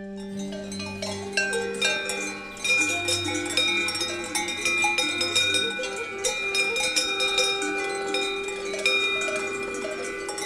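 Background music: many bell-like struck notes ringing over a steady low drone, growing louder about two and a half seconds in.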